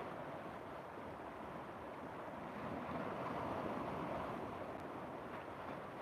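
Fast-flowing muddy river churning and splashing against a rocky bank: a steady rushing of water that swells a little around the middle.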